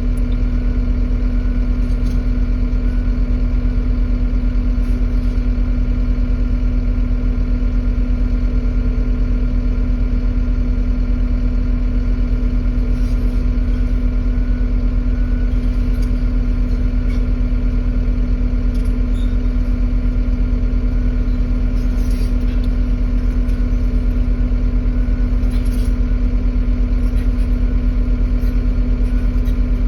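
Diesel engine of a John Deere 135G excavator running steadily at an even speed, with a strong low hum and no revving.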